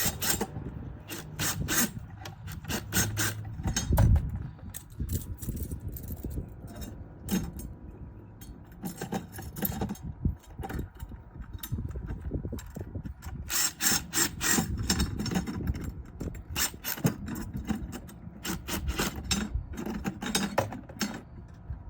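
Hand ratchet with an 8 mm socket clicking in short quick runs, tightening the bolts of metal antenna mounting clamps, with a heavier knock of metal parts about four seconds in.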